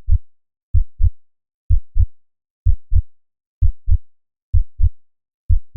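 Heartbeat sound effect: a steady lub-dub of paired low thumps, about one beat a second.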